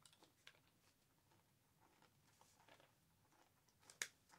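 Near silence with faint crunching as a hard, sugar-glazed candied pecan is chewed, and one sharper click about four seconds in.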